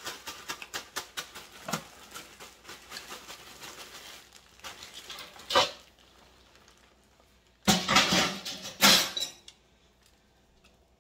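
Zip-top plastic bag of crushed corn flakes crinkling and rattling as chicken is shaken in it to coat it, with two loud bursts of shaking near the end. Light rustles and clicks of handling the bag and dipping the chicken come before.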